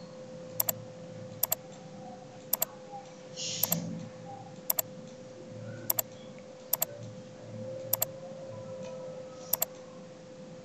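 Computer mouse button clicks: nine sharp press-and-release double clicks at irregular intervals of about a second, over a faint steady hum.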